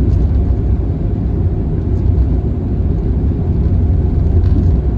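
Steady low rumble of a vehicle cruising along a highway: engine and road noise.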